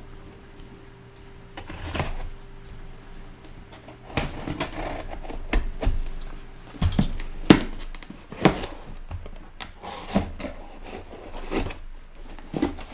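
A cardboard shipping box is handled on a tabletop, with irregular knocks, taps and scrapes starting about four seconds in, and a folding pocket knife is brought to its packing tape near the end to slit it open.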